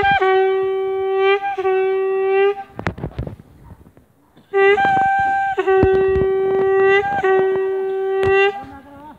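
Traditional Garhwali processional horn blown on one steady, loud note: two long blasts, a pause of about two seconds, then a short blast and two more long ones. A drum, the dhol, is struck now and then underneath.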